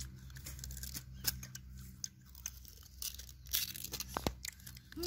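Sugarcane rind being torn off with the teeth and the fibrous stalk chewed: irregular sharp tearing and crunching snaps.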